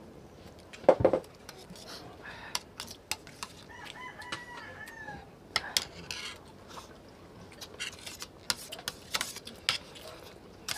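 Eating at a table: spoons and utensils clicking on plates and a metal serving tray, with one heavier thump about a second in. A faint drawn-out call sounds in the background around four seconds in.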